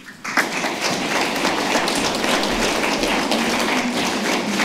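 Audience applauding: many hands clapping in a dense patter that starts a moment in and keeps going.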